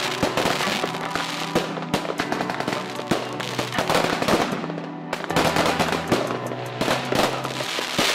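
Aerial fireworks bursting and crackling, with many sharp bangs in quick succession, over music with held tones.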